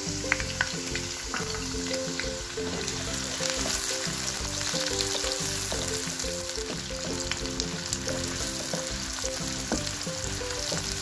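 Chopped red onions sizzling in hot oil in a kadhai, with a steady hiss and scattered small crackles, stirred with a wooden spatula in the second half.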